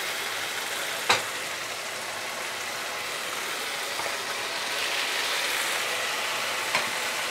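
Spiced onion-tomato masala sizzling steadily in hot oil in a non-stick pan, fried to the stage where the oil separates. One sharp knock of the spatula against the pan about a second in, and the sizzle grows slightly louder after about five seconds.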